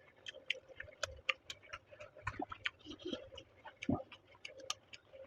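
Close-miked chewing: irregular wet mouth clicks and smacks, several a second, over a faint steady hum.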